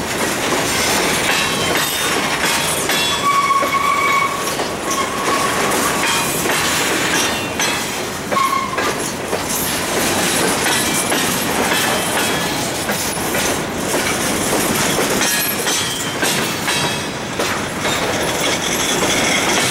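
Empty covered hopper cars of a grain train rolling past close by. The steel wheels click over the rail joints under a steady rumble. Brief high-pitched wheel squeals come a few seconds in and again about eight seconds in.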